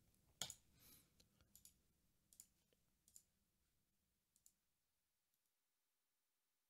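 Near silence broken by a handful of faint computer mouse clicks, about one a second.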